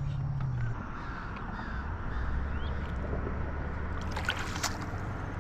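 Fast river water rushing around a small aluminium jon boat, over a low steady motor hum that drops to a lower pitch about a second in. There are a few sharp splashes or knocks near the end, fitting paddle strokes.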